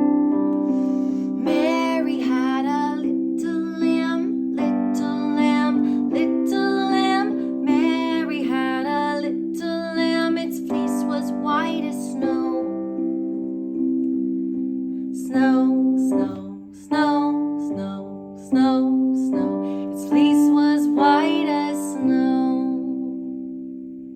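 A woman singing a children's sing-along song over held piano chords. The music dies away near the end.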